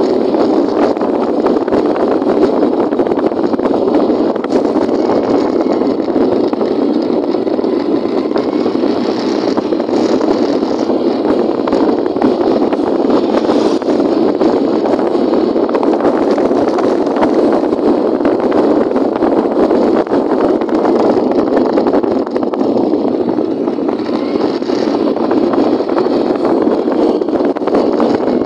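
Motorcycle under way at road speed, heard from the rider's seat: a steady rush of engine and wind noise on the phone's microphone.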